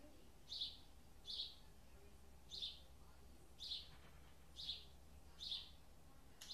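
A small bird chirping over and over, short high chirps about once a second at slightly uneven intervals, above a faint low hum.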